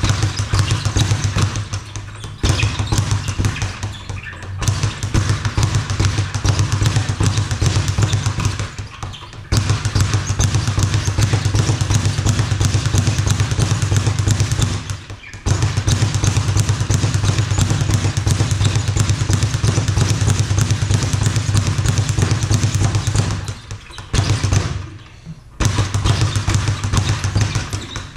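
Speed bag being punched in fast continuous runs, the bag rebounding off its platform in a rapid drumming of thuds. The runs stop briefly a few times, about two, four, nine and fifteen seconds in, and for a longer rest near the end.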